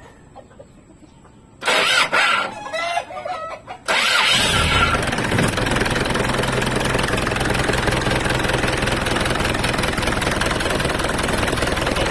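A chicken clucks about two seconds in; then, about four seconds in, an Isuzu 4BC2 four-cylinder diesel starts up and settles into a loud, steady idle on its fresh oil.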